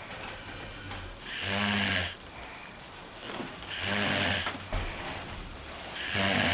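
A sleeping man snoring: three loud snores about two and a half seconds apart, with quieter breathing between them.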